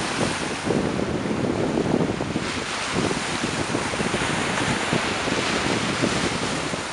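Wind buffeting the microphone over the wash of small waves breaking against a stone breakwater.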